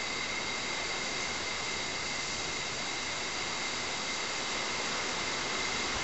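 Strong wind blowing, a steady, even rush of noise with a few faint high steady tones running through it.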